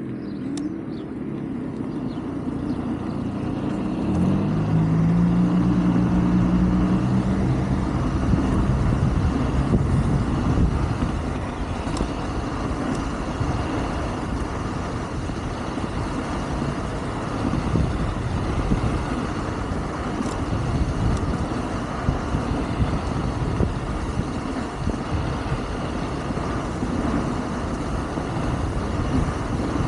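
Wind rushing over the microphone and rumbling road noise while riding an electric scooter. A deeper droning hum swells between about four and nine seconds in, then fades.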